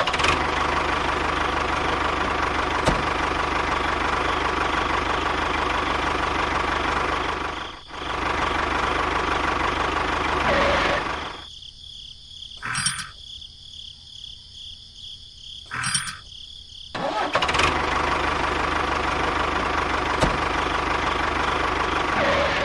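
A small motor running steadily with a thin whine. It cuts out after about eleven seconds, with a brief dip partway through. Two short sounds follow in the quieter gap, and it starts up again about six seconds later.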